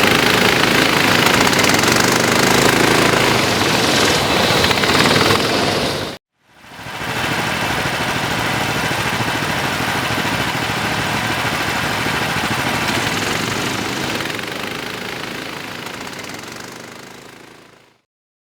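Racing kart engines running hard at high revs. The sound cuts off abruptly about six seconds in, resumes, and fades out near the end.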